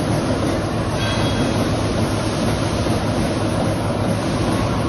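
Steady machinery noise in a workshop: a constant low hum under a dense, even rumble, with no separate punching strokes.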